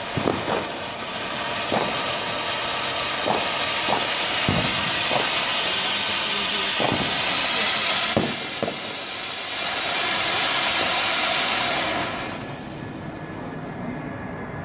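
Firework hissing steadily with scattered sharp cracks, dying away about twelve seconds in.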